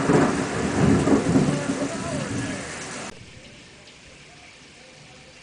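A loud thunderclap rumbling over steady rain, starting suddenly and cutting off abruptly about three seconds in, leaving only quieter rain.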